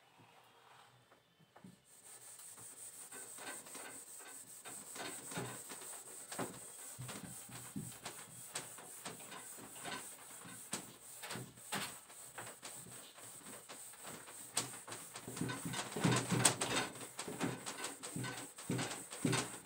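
A handheld duster scrubbing back and forth across a whiteboard, wiping off marker writing in many short strokes. It starts about two seconds in and gets louder near the end.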